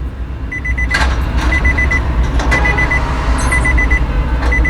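Electronic warning beeps: a short run of rapid high beeps repeating about once a second over a steady low hum, with a couple of light clicks.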